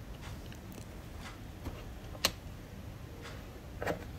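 Plastic snap clips of a Lenovo IdeaPad Slim's bottom cover clicking into place as the cover is pressed on: one sharp click about two seconds in and a few smaller clicks near the end, over faint background hiss.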